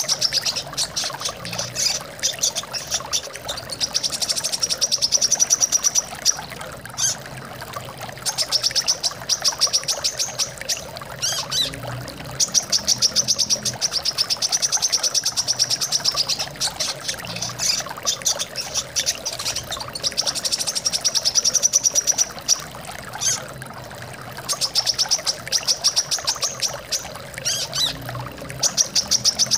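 Brown-throated sunbird (kolibri kelapa) singing rapid, high trills in bursts of about two seconds, roughly every four seconds, over a steady trickle of flowing water.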